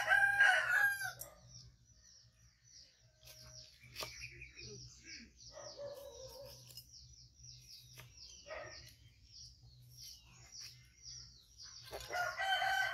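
A rooster crows at the start and again near the end. Between the crows comes a steady run of short, high chirps, about three a second.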